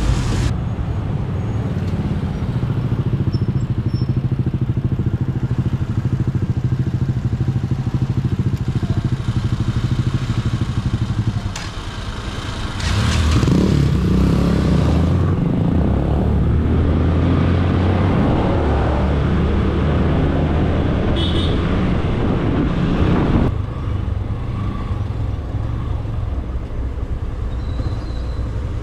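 Motorcycle engine running in traffic, heard from the rider's own bike: steady at first, then louder from about twelve seconds in until near 23 seconds, then steadier again.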